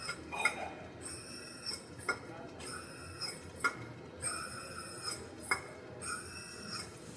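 Bench drill press bit cutting into an aluminium motorcycle wheel hub flange: a high ringing tone comes in short repeated spells about every second and a half, with sharp clicks between them.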